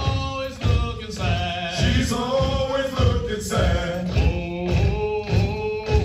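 Marine Corps hiking cadence sung by a group of male voices, with no instruments, over a steady low beat about twice a second.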